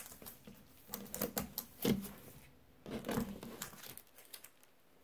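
Plastic comic-book bags crinkling and rustling as the bagged comics are handled and shuffled, in a few short spells that die away near the end.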